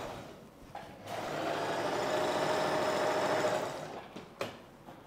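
Sewing machine stitching a seam in fabric in stop-start runs: it stops just after the start, runs steadily again from about a second in for some three seconds, then winds down, and a single click follows near the end.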